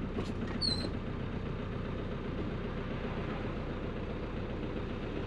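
The 1985 Mazda T3500 truck's non-turbo engine running steadily under way, heard from inside the cab, with a brief high chirp under a second in.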